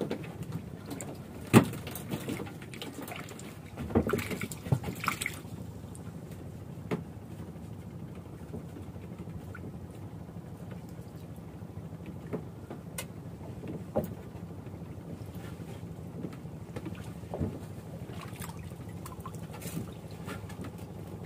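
Knocks and clicks of a fishing hand line and tackle being handled on a small wooden boat, over a steady low hum. The sharpest knock comes about a second and a half in, and a cluster follows around four to five seconds.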